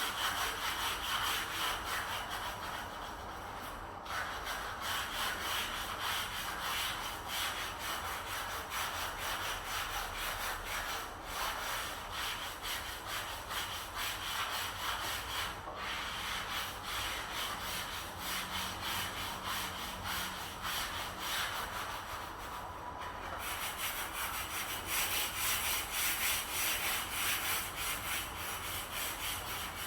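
Rapid back-and-forth rubbing strokes of a hand tool against wood, like sanding or sawing, with a few brief pauses.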